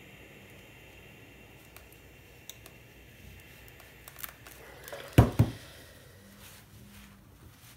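Steam iron worked over a folded cotton hem with a faint steady hiss and a few small clicks, then a loud double thump a little past the middle as the iron is set down on its heel.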